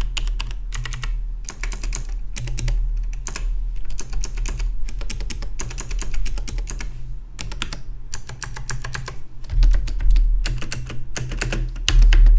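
Fast typing on a Logitech G Pro-series mechanical gaming keyboard, a dense run of key clicks with a few short pauses.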